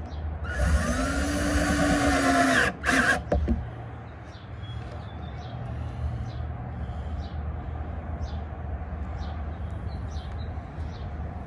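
Cordless drill driving a screw through a metal bracket into plywood: the motor spins up about half a second in, runs about two and a half seconds with a brief break near the end, and stops.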